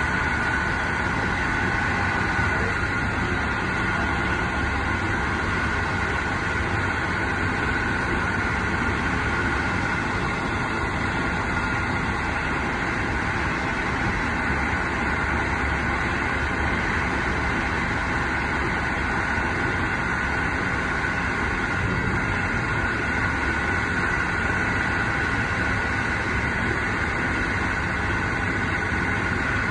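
Passenger train running at speed, heard from inside a carriage: a steady rumble of wheels on the rails with a constant high whine running through it.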